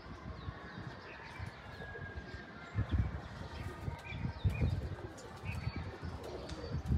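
Domestic pigeons cooing in a loft, in irregular low swells, with faint higher chirps from other small birds.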